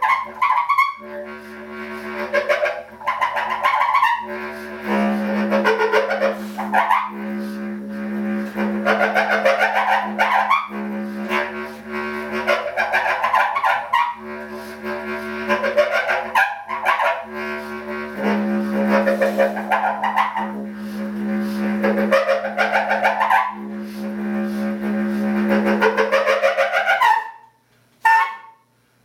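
Solo bass clarinet: a steady low drone with rising higher figures repeating over it every couple of seconds. The drone breaks off about 27 seconds in, and two short notes follow near the end.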